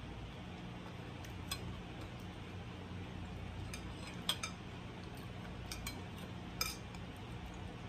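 Chopsticks clinking lightly against a ceramic bowl and plate, about half a dozen scattered clicks as food is picked up, over a steady low hum.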